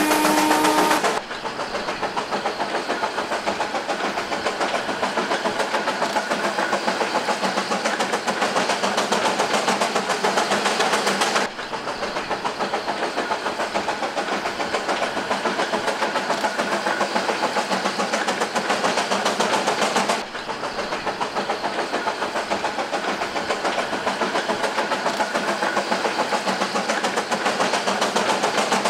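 Darjeeling Himalayan Railway steam locomotive working uphill, its exhaust beating in a fast, even rhythm. The sound cuts off and picks up again abruptly three times.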